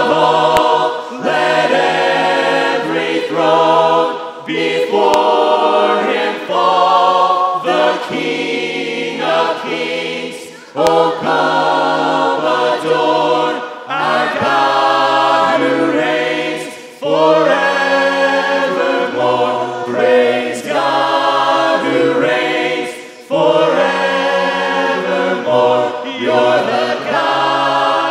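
Group of singers on microphones singing a hymn a cappella in several-part harmony, in phrases of about three seconds, with short breaths between them.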